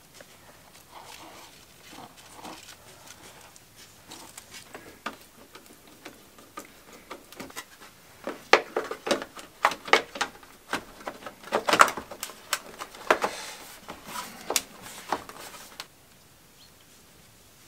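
Faint rustling and light taps, then about halfway in a quick run of sharp plastic clicks and knocks as a small plastic electrical box is handled and fitted, stopping abruptly near the end.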